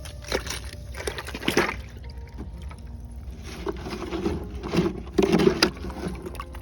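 Water spraying and splashing in several bursts as a rock is rinsed clean, over faint background music.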